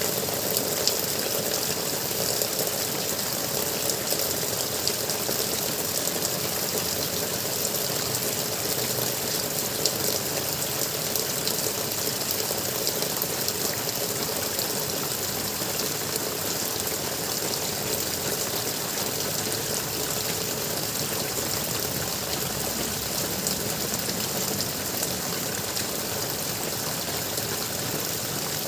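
Water gurgling steadily, a continuous even rush with no pauses.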